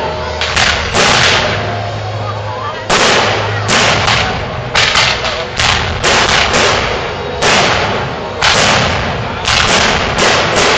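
Aerial fireworks shells bursting in quick succession, loud sharp bangs often less than a second apart, each trailing off in an echo.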